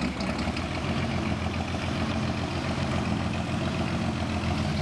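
Old forklift's engine running steadily with an even pulsing beat as the forklift drives.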